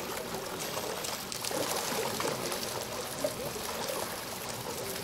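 Water splashing and churning as African penguins swim and dive in their pool while being fed.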